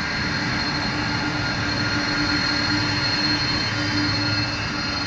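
Boeing 747 Dreamlifter's four turbofan engines running steadily: a continuous rush of jet noise with a thin high whine and a low hum.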